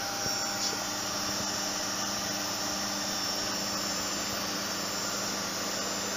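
Zanussi ZWF 1432 washing machine running in its spin cycle: a steady hum and whirr from the motor and turning drum, with a light click under a second in.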